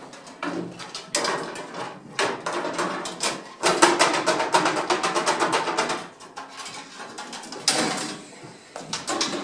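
Rapid clattering and knocking of hard objects being handled, thickest in the middle with another loud burst near the end.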